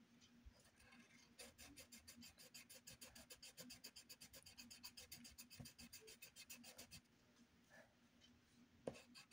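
Faint scratching of a colored pencil on paper in quick back-and-forth strokes, about eight a second, for several seconds. It stops briefly, then starts again near the end.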